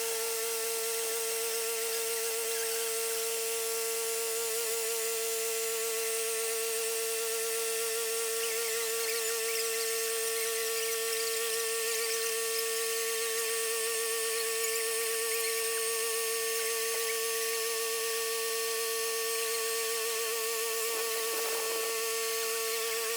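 Sawmill running with a steady whine held at one unchanging pitch.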